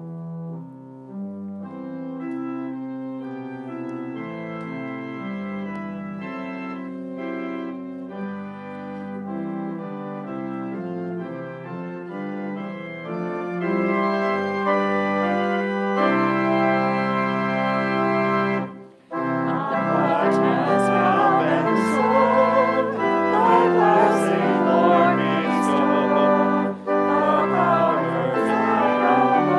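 Organ playing slow, held chords, then after a brief break about two-thirds of the way through, a louder, busier passage.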